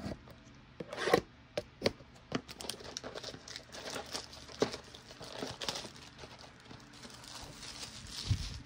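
The packaging of a 2022 Panini Diamond Kings trading-card blaster box crinkling and tearing as it is unwrapped by hand, in many sharp crackles and rustles. A low thump comes near the end.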